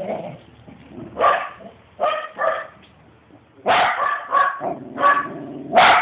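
A West Highland White Terrier barking in short sharp barks: a few spaced barks, then a quicker run of them in the second half.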